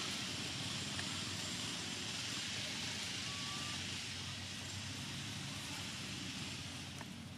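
Steady low rumble of a vehicle engine running, with a steady high hiss above it, easing slightly near the end.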